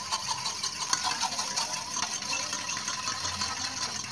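Egg whites being beaten by hand with a fork in a stainless steel bowl: rapid, steady clicking and scraping of the fork against the bowl as the whites are whipped to a froth.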